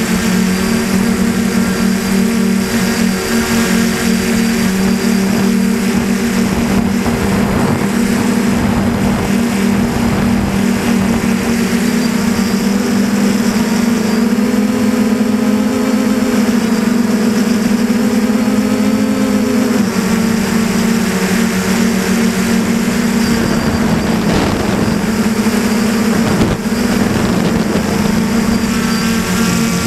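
DJI Flamewheel 450 quadcopter's brushless motors and propellers humming steadily in flight, heard from a camera mounted on the frame, over a constant rush of noise. The pitch rises slightly for several seconds mid-way and drops back about twenty seconds in as the throttle changes.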